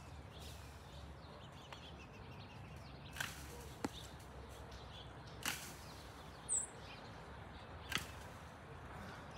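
Quiet outdoor background with a steady faint low rumble, broken by four sharp short clicks spread through and one brief high bird chirp about two-thirds of the way through.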